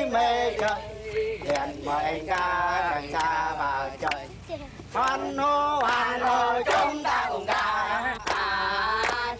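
Several voices, men and women together, singing in held notes that bend in pitch, phrase after phrase with short breaks between.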